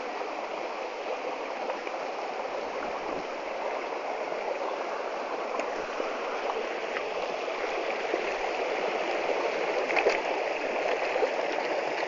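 Mountain stream flowing steadily, with a few faint clicks about ten seconds in.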